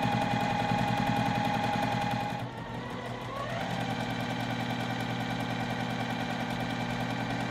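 Juki sewing machine running steadily while stitching a folded cotton fabric strap, the needle going at an even, fast rhythm. About two and a half seconds in it slows, then speeds back up with a rising motor whine and runs on steadily.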